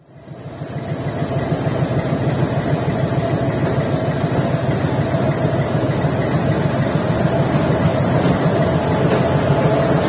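WAS5 electric locomotive running as it shunts a rake of coaches: a steady rumble with a steady whine above it, fading in over the first second.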